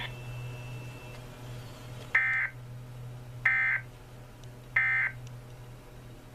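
Emergency Alert System end-of-message data bursts: three short, identical raspy digital squawks, each about a third of a second long and about 1.3 s apart, marking the close of the EAS test.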